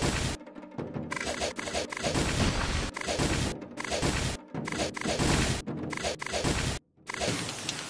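Cartoon fight sound effects: a quick run of punch and kick impacts and whooshes, with a brief sudden cut-out about seven seconds in.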